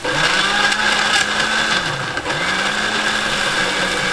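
Countertop electric blender grinding shallots, garlic, ginger and turmeric into a wet spice paste. The motor starts suddenly, winds down briefly about two seconds in, then spins back up and runs on.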